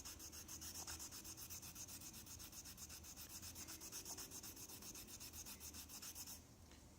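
A bar of stropping compound rubbed quickly back and forth on a leather strop: a faint, even scratching rhythm that stops about six seconds in.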